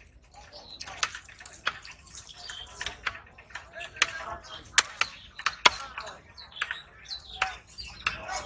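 Irregular sharp knocks and clicks of a knife blade striking a wooden chopping stump while a large rohu is cut up, the loudest a little before and after the middle, with faint voices behind.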